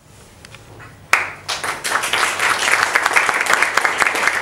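Audience applauding, starting about a second in and carrying on steadily as a dense patter of many hands clapping.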